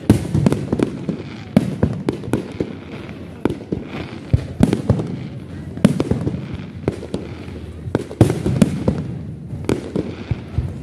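Fireworks display: aerial shells bursting in a dense, irregular run of bangs, several a second, with crackle between them. The heaviest bangs come right at the start, about six seconds in and about eight seconds in.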